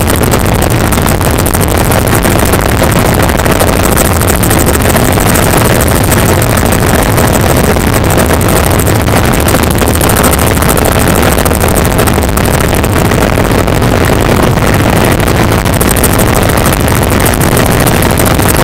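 Helicopter engine and rotor noise heard from inside the cabin, loud and steady, with a deep low rumble.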